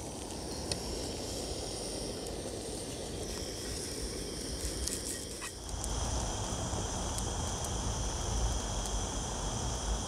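Cleavers (goosegrass) frying in oil in a non-stick pan over a gas camping stove: a steady low rush with a few faint crackles. It grows louder and fuller about six seconds in.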